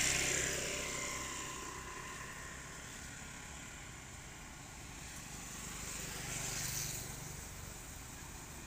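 Engine noise of a passing motor vehicle: a steady low hum that swells near the start and again about six seconds in.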